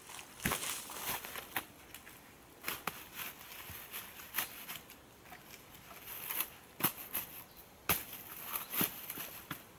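Irregular crunching footsteps through long dry grass and dead twigs, with scattered sharp snaps and knocks of dead wood. Two louder cracks come about two-thirds of the way through.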